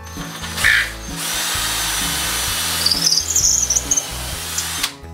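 Cordless drill boring a pilot hole for a lag screw through a wooden shelf support bracket into a wall stud. It runs for nearly five seconds, with a brief high squeal about three seconds in, and stops just before the end.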